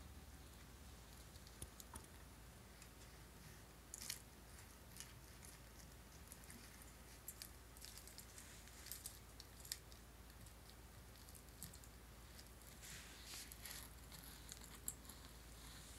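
Faint rustling and light, irregular clicks of a power supply's bundled cables and plastic connectors being handled, with a few sharper clicks around the middle and near the end.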